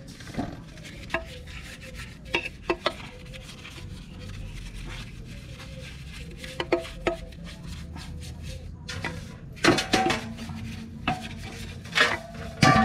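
Paintbrush scrubbing a scooter's metal CVT cover over a steel basin of gasoline, with scattered clicks and knocks of the brush and part against the basin. The loudest knocks come near the end and leave the basin ringing.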